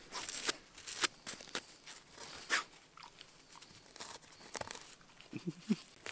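A dog digging and nosing into loose soil and small roots at the base of a stump, making an irregular series of short scratches and small cracks. A brief low pitched sound comes near the end.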